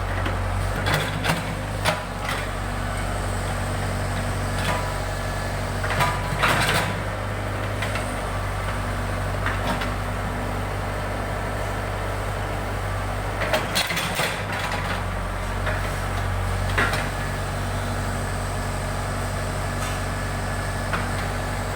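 Backhoe loader's diesel engine running steadily, with several sharp metallic clanks and knocks from the machine at work.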